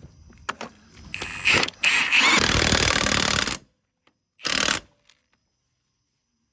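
Impact wrench running in three bursts, the middle one the longest and loudest at about a second and a half, each cutting off sharply.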